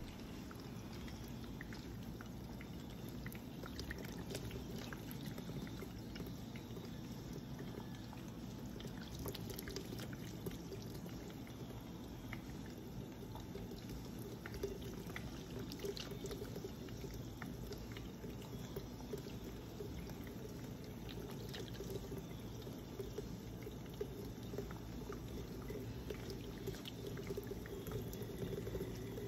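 A small electric pet water fountain running, its jet of water trickling and splashing steadily back into the plastic bowl, with a low steady hum underneath.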